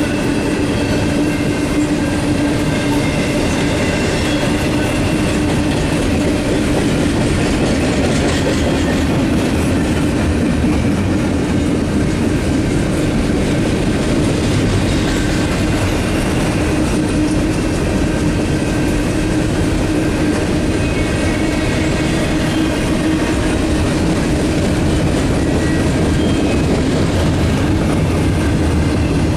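BNSF double-stack intermodal freight train's well cars rolling past at steady speed: a continuous rumble of steel wheels on rail, with a steady low hum and faint higher tones coming and going.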